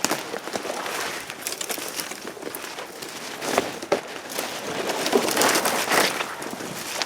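Dry leaves and brush rustling and crackling, with scattered snaps and clicks, loudest about five to six seconds in.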